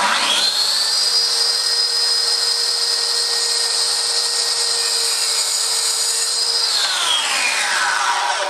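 Bosch plunge-cut track saw starting up with a quick rising whine, running steadily as it cuts through a wooden cladding board along its guide rail, then winding down with a falling whine near the end.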